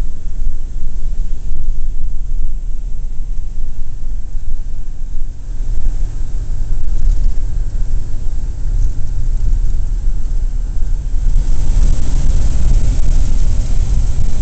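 A 1941 Plymouth's flathead straight-six runs at road speed, heard from inside the cabin with a steady low rumble of engine and tyres. Wind and road hiss grow louder about three-quarters of the way through.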